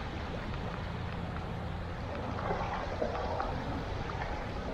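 Steady outdoor shoreline ambience: small waves lapping and trickling among rocks at the water's edge, over a low, even rumble.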